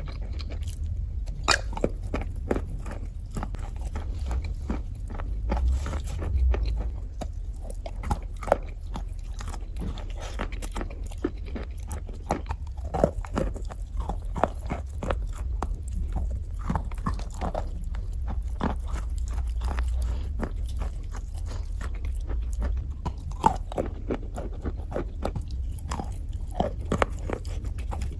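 Close-miked biting and chewing of brittle, chalk-like slate pencil sticks: irregular sharp crunches and crackles, several a second, over a steady low hum.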